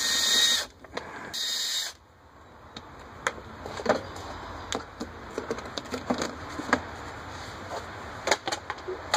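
A power drill-driver whirs in two short bursts in the first two seconds, backing out the screws that hold the generator's cover. Scattered light clicks and knocks of the screws and the cover panel being handled follow.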